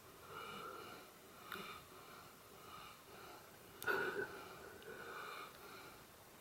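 Labrador retriever snoring in its sleep: repeated wheezy, nasal breaths, with a sudden louder snort about four seconds in.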